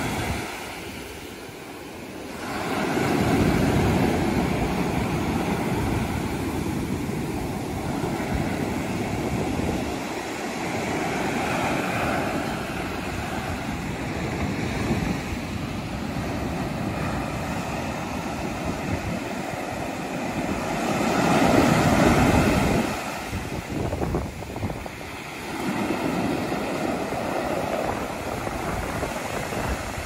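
Surf breaking and washing up a sandy beach, a steady rushing that swells and eases with each wave, loudest a few seconds in and again about two-thirds of the way through.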